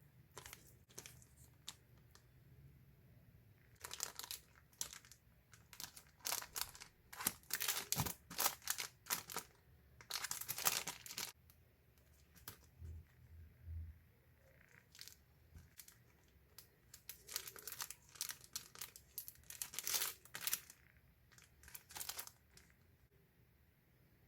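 Packaging being torn open and crinkled by hand: irregular crackling and tearing in two busy stretches, one through the middle and one shortly before the end.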